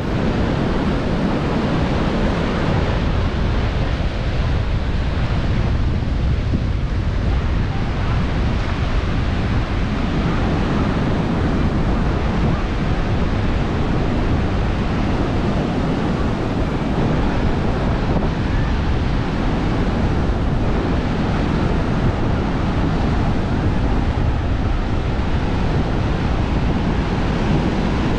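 Sea surf washing steadily onto a sandy beach, with wind buffeting the microphone.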